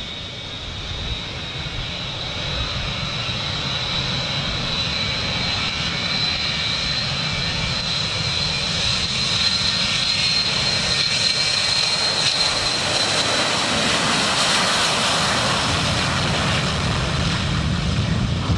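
Boeing 727's three Pratt & Whitney JT8D jet engines at takeoff power as the jet accelerates down the runway toward liftoff. The roar grows steadily louder as it approaches, and a high whine holds steady, then drops in pitch as the jet passes, loudest about three-quarters of the way through.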